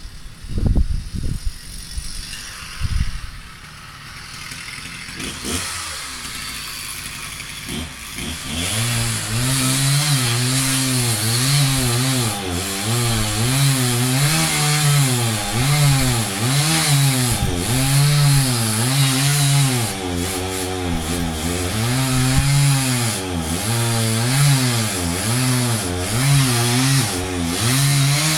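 A few sharp knocks, then from about eight seconds in a two-stroke chainsaw running hard, its pitch dipping and rising about once a second as it bogs under load in wood.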